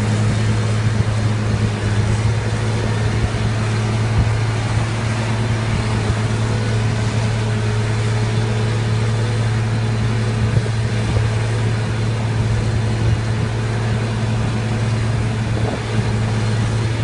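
Fiat 160-90 DT tractor's diesel engine running steadily under load, a constant deep hum with no change in pitch.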